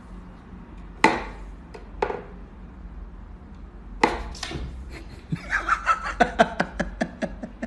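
Wooden knocks and clacks from a Carno wooden cat whack-a-mole box as its pegs are pushed and a toy fish pops up through the holes: single knocks about a second apart, then a quick run of clicks near the end.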